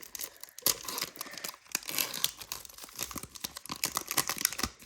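Foil wrapper of a trading card pack crinkling and tearing as it is opened, with irregular crackles as the cards are handled.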